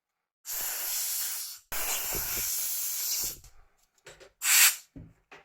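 Two long hissing rushes of air, each a second or more, then a short, sharp, louder hiss and a couple of small clicks.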